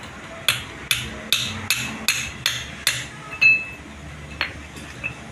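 Hand hammer striking the steel yoke and bearing cups of a propeller-shaft universal joint on a steel block: a run of about seven sharp metal strikes, a little over two a second, then a louder strike with a brief metallic ring, and two lighter taps near the end. The work is a stage in replacing a worn, rusted universal-joint cross.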